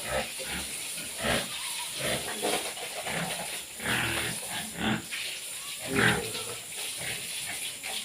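Domestic pigs grunting, about six short separate grunts at irregular gaps.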